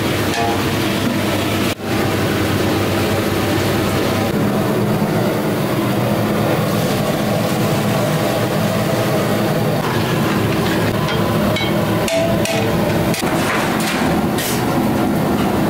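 Kitchen equipment running steadily, a constant mechanical rumble with a low hum that briefly drops out about two seconds in.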